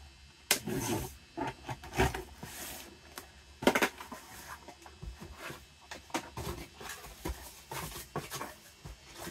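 A mailed box being opened and its contents and packing handled by hand: irregular rustles, scrapes and light knocks, the loudest about three and a half seconds in.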